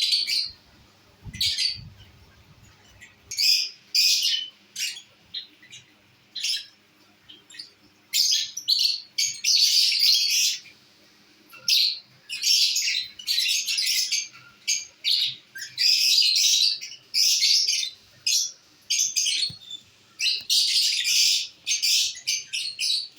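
Lovebirds chirping and calling: many short, shrill chirps that come singly and in rapid clusters, with brief pauses between.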